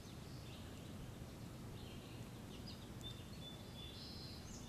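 Faint bird chirps and a brief high whistle about three seconds in, over quiet outdoor background noise.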